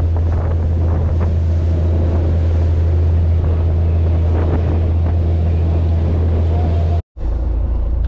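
Fishing boat running at speed: a steady low engine drone, with water rushing off the hull and wind buffeting the microphone. The sound cuts out briefly about seven seconds in, then comes back lower.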